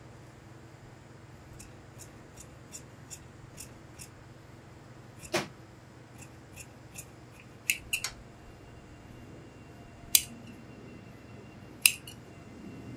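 Large tailor's shears cutting through suit-trouser cloth: a run of quiet, quick snips of the blades, then several sharper, louder clacks spaced a second or two apart.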